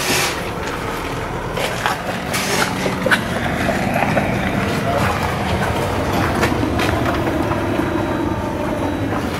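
Corrugated plastic wire loom being handled and pushed through a hole in a steel body panel: scattered clicks and rustles over a steady low hum.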